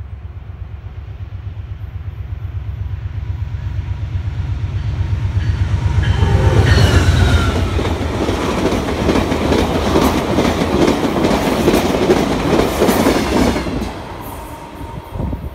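Amtrak Cascades Talgo passenger train passing at speed. The diesel locomotive's low, pulsing rumble builds as it approaches and is loudest as it goes by, then the Talgo cars rush past with rapid clicking of wheels on the rails. The sound drops off sharply about fourteen seconds in as the end of the train passes.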